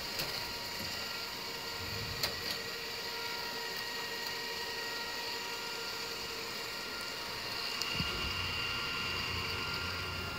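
Ecovacs Deebot M80 Pro robot vacuum running on a hard floor: a steady motor whine of several high tones over a light hiss. A single click comes about two seconds in, and a low rumble joins from about eight seconds on.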